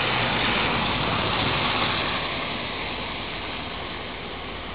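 The 16-cylinder turbocharged diesel of an EMD GP40 locomotive running as it rolls slowly toward the listener, a steady low rumble under a loud hiss that swells and then eases off.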